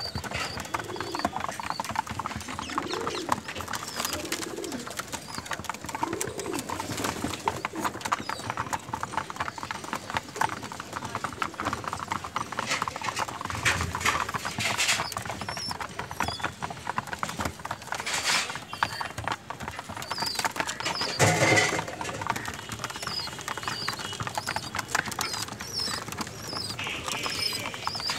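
A flock of domestic pigeons pecking grain off a hard floor: a dense, rapid clatter of beak taps, with a few low pigeon coos in the first several seconds. Short high chirps come now and then, and there is a louder burst of noise about three-quarters of the way through.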